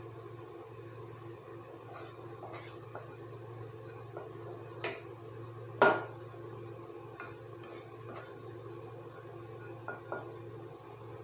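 Kitchen utensils clinking and scraping on a pan and a metal pot as sautéed vegetables are transferred into dosa batter. The clinks are light and scattered, with one sharp, loud clink about six seconds in.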